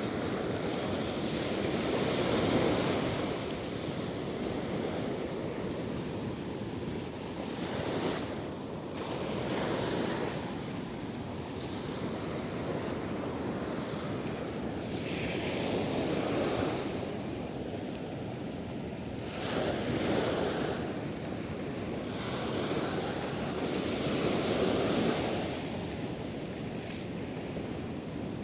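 Sea waves washing against a rock breakwater, the surf swelling and fading every few seconds, with wind rumbling on the microphone.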